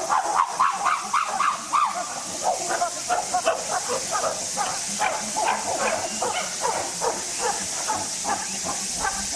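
Chimpanzee calls: a long run of short, quick calls, several a second, loudest in the first couple of seconds, over a steady high hiss.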